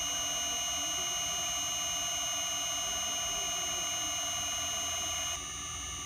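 Inverter-fed induction motor running a rotating autotune, giving a steady high-pitched electrical whine made of several pitched tones from the drive's switching. The whine drops slightly and changes tone about five seconds in.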